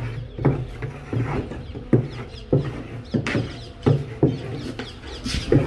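Regular knocking strokes, about three every two seconds, over a steady low hum.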